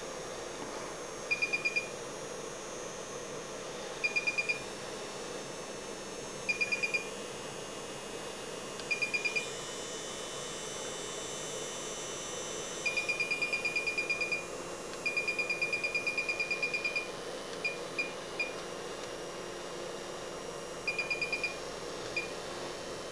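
VENOM Mini prototype tattoo power supply beeping as its buttons are pressed to step the voltage up and down. Short clusters of rapid, high-pitched beeps come every couple of seconds, with two longer runs of beeps around the middle where a button is held, over a steady hiss.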